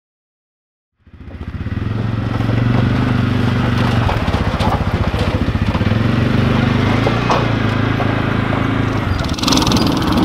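A small engine running steadily, fading in after about a second of silence, picking up near the end.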